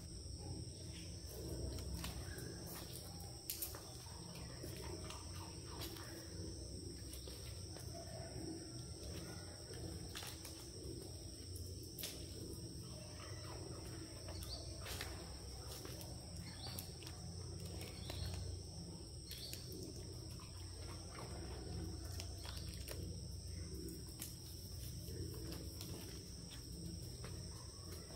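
Quiet background ambience: a steady high-pitched drone and a low hum, with scattered light clicks and a few short high chirps.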